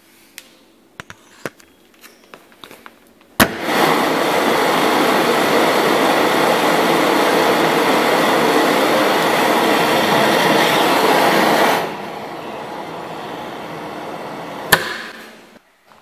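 Beam central vacuum drawing air through a toe-kick floor inlet: a click, then a loud steady rush of suction for about eight seconds. The sound then drops to a quieter steady run for a few seconds and ends with another click and a fade-out.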